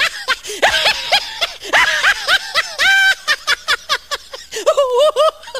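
High-pitched human laughter: a long run of quick 'ha-ha' cackles that waver up and down in pitch, with short breaks between fits.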